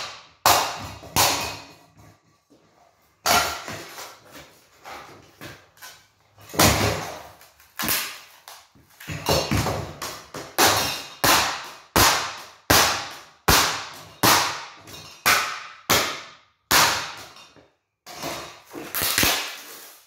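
A metal rod repeatedly smashing a cheap ceiling fan lying on a concrete floor. Two blows come near the start, then a short pause, then a steady run of hard strikes about twice a second, each with a brief clattering ring.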